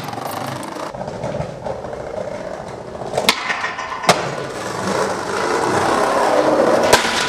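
Skateboard wheels rolling on concrete, with sharp clacks of the board hitting and landing about three seconds in, again a second later, and once more near the end. The rolling grows louder a little past halfway.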